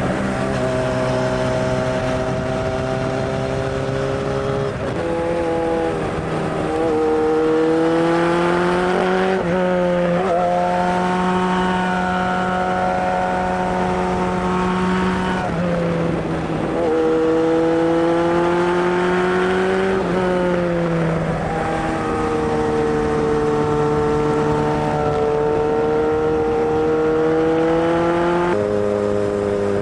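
Kawasaki Zephyr 750's air-cooled inline-four engine running. It is revved and held at several steady speeds in turn, with the pitch gliding up or down between them every few seconds.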